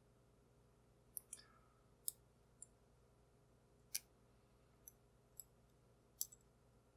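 Faint, irregular metallic clicks from a lock pick and tension wrench working the pin stacks of a cheap round-body pin-tumbler padlock during single-pin picking. There are about eight separate ticks, a few with a short ringing tail.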